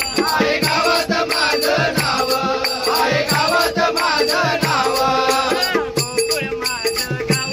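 Marathi gavlan folk music with a gliding melodic lead over a steady, quick drum beat and evenly spaced jingling percussion strokes.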